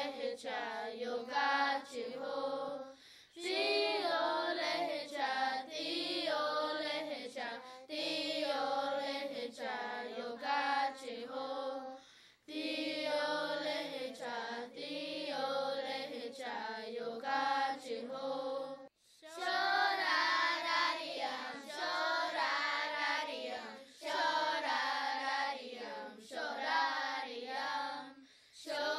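A group of children singing a song together in the Choctaw language, in phrases with brief pauses between them.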